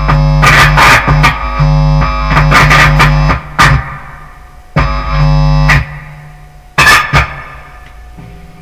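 Bass guitar played through a distortion pedal and a small guitar amp: a loud, sustained distorted drone with harsh noisy stabs over it. About three seconds in it breaks off, then comes back in short blasts, the last one about seven seconds in, each dying away.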